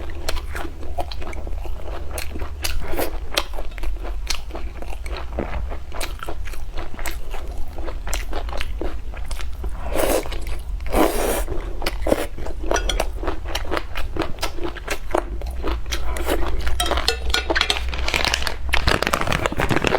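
A person eating crunchy food close to the microphone: irregular crunching bites and chewing throughout, over a steady low hum.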